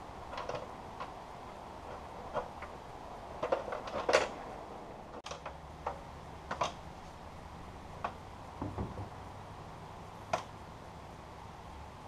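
Scattered wooden knocks and clunks of a man's boots and grip on board roofing and a ladder as he climbs down from a roof, the loudest knock about four seconds in.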